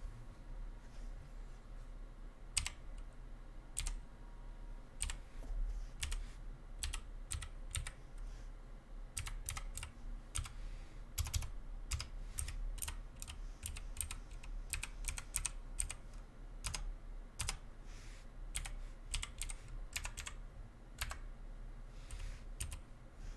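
Typing sound test on an MK Box custom gaming keyboard: irregular key clicks, a few scattered keystrokes at first, then quicker runs of typing from about nine seconds in.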